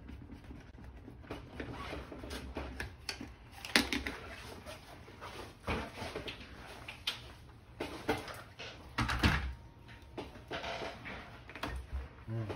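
Irregular knocks, clicks and scrapes of hand tools and hands working the frame of an RV window to take it apart and get at the fogged glass. The sharpest knock comes about four seconds in, with others a few seconds apart after it.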